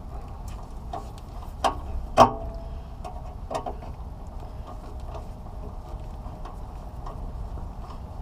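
Scattered light clicks and metallic taps of hands and a hand tool working the ground-wire connection behind a steel truck bumper, with two sharper knocks about two seconds in, over a steady low rumble.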